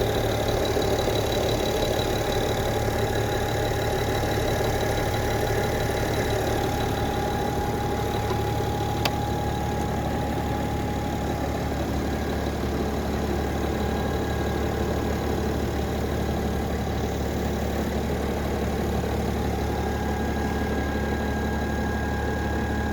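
Car engine idling steadily, a low even hum; the engine has a blown head gasket. Over it runs a steady high whine from a connected battery charger. A single sharp click comes about nine seconds in.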